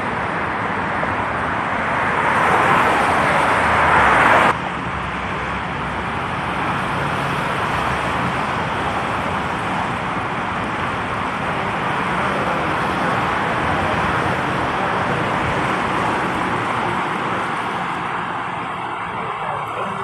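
BART train running through the station: a steady, loud rush of wheels on rail, loudest in the first few seconds and dropping suddenly about four and a half seconds in, then continuing evenly.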